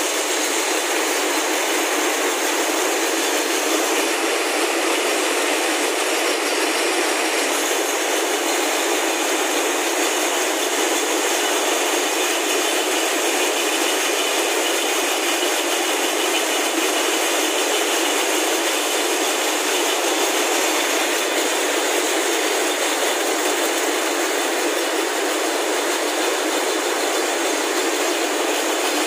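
Many drawing and spinning frames running together on a factory floor, twisting fibre slivers into yarn: a loud, steady, unbroken mechanical clatter with no pauses or changes.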